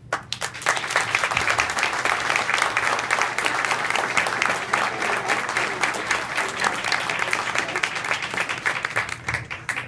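Audience applauding. The clapping starts right away, holds steady, and dies down near the end.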